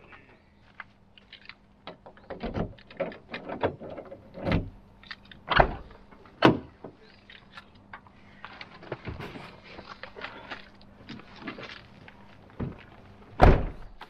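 Ford Econoline van doors being handled, with a run of knocks and clunks as things are moved around inside the van and a stretch of rustling midway. A loud thunk near the end as the front passenger door is shut.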